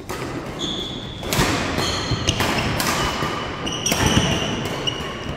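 Badminton play in an echoing sports hall: a few sharp racket hits and thuds of footsteps, with trainers squeaking briefly on the wooden court floor.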